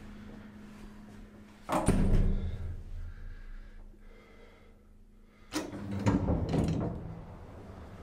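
Elevator doors and machinery. About two seconds in there is a sudden heavy clunk with a rumble that fades over about a second, over a steady low hum. A second clattering thud and rumble comes about five and a half seconds in.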